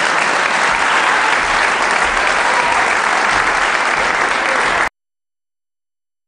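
Theatre audience applauding, a dense steady clapping that cuts off abruptly near the end.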